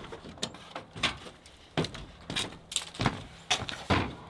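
A string of irregular knocks, clicks and light rattles, as of things being handled and set down, over a faint low hum.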